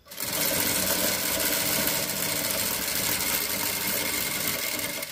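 Electric sewing machine stitching a straight seam through tulle, starting abruptly and running steadily at speed, then easing off near the end.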